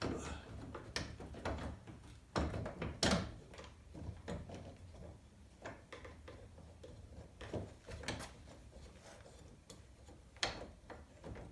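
Irregular light metal clicks and taps, with a few louder knocks, as a bolt is worked into a door-hinge step on a Jeep Wrangler's door hinge while trying to find the thread.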